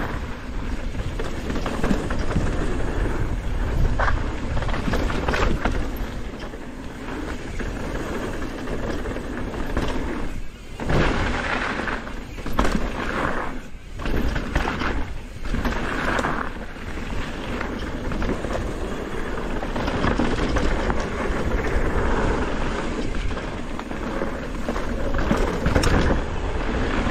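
Downhill mountain bike ridden fast over rough dirt trail: continuous tyre and wind rumble with many knocks and rattles from the bike over bumps, easing briefly twice midway.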